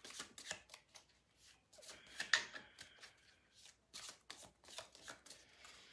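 A deck of oracle cards being shuffled by hand, overhand style: a faint, irregular run of soft card slaps and flicks as packets are lifted off the deck and dropped back.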